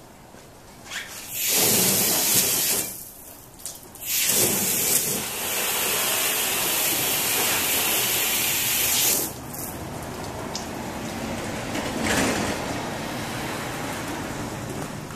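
Garden hose spraying water onto a car's hood. There is a loud spray of about two seconds, a short break, then a longer spray of about five seconds, after which a softer spray of water goes on.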